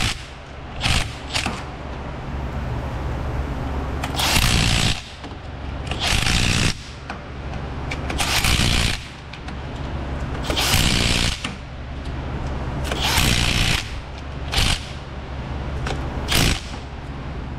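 Milwaukee FUEL cordless ratchet running in about nine short runs, each under a second, driving in the bolts of a CV axle's inner joint on the front differential.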